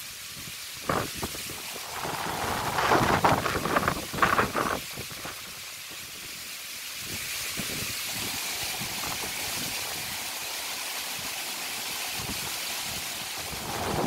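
Strong wind gusting through coconut palms and trees, with gusts buffeting the microphone in loud bursts during the first five seconds, then settling into a steady rushing hiss.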